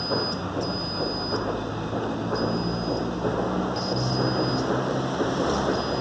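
Clamp multimeter in continuity mode giving short high beeps, about four of them, each under a second, as its probes touch the electric water heater's upper thermostat terminals. The beep shows the thermostat has continuity. A steady rushing background noise runs underneath.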